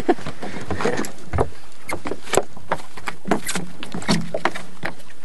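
Irregular knocks and clicks aboard a small fishing boat, over a steady noise of wind and water.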